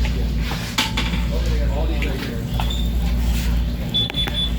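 Light metallic clinks and taps of tools and bike parts being handled, over a steady low hum.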